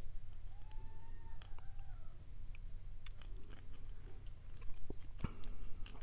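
Lock pick raking and probing the pins of a brass Sesamee padlock under medium to heavy tension: light, irregular metal clicks and scrapes, with a faint squeak about a second in. No pin has set yet.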